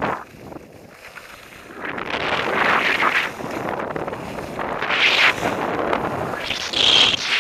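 Wind buffeting an action camera's microphone while skis scrape and hiss over hard, choppy snow on a downhill run. The noise swells in surges about every two seconds as the skier turns.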